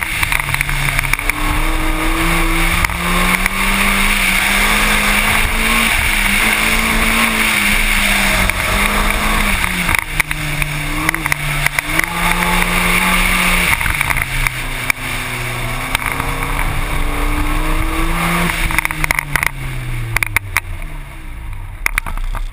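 Car engine heard from inside the cabin, its note rising and falling again and again as the car accelerates and lifts off between cones, over a steady hiss of wind and tyre noise. Over the last few seconds the engine note drops away as the car slows.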